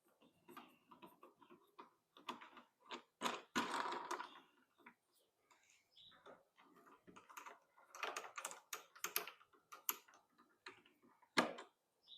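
Irregular clicks, taps and light knocks of the dethatcher's handle bolts being screwed in by hand, with a cluster of quick clicks about eight seconds in and one sharper knock near the end.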